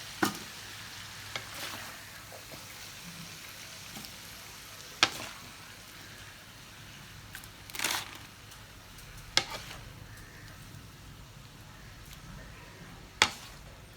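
Faint sizzling of food cooking in a pot, slowly dying down, with four short, sharp clicks and a brief scraping stir about halfway through.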